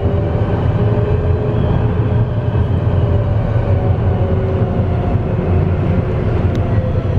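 Tram running along the track, a steady low rumble with a faint hum of the traction motors.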